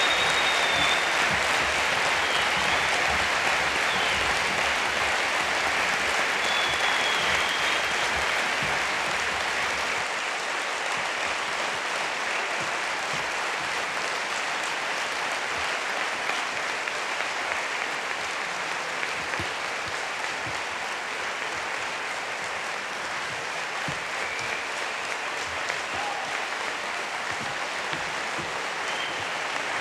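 Large audience clapping steadily, easing off slightly after about ten seconds, with a few short whistles over the applause.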